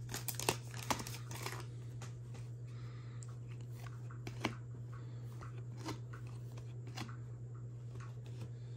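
Trading-card pack wrapper crinkling as it is torn and crumpled for the first second and a half, then a few scattered light clicks of cards being handled, over a steady low hum.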